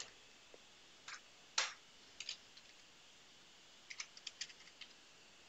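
Faint computer keyboard keystrokes: a few scattered taps, then a quick run of about half a dozen in the second half.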